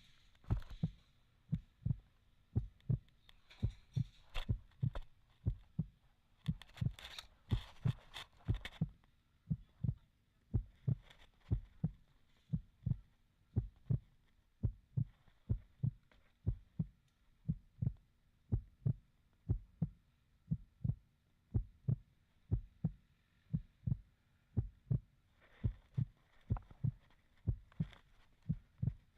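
Steady run of low, dull thuds, about two a second, with brief spells of rustling between them.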